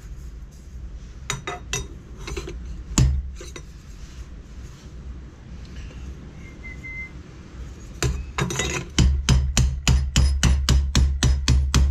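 Hammer striking the welded seam of a thin sheet-metal exhaust cone held over a pipe mandrel, planishing the weld area. A few scattered taps come first, then from about eight seconds in a steady run of about four blows a second.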